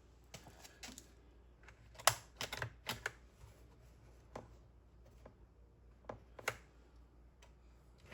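Scattered light clicks and taps of hard plastic parts being handled, with the sharpest knock about two seconds in. These are the parts of a cheap unboxed two-stroke chainsaw.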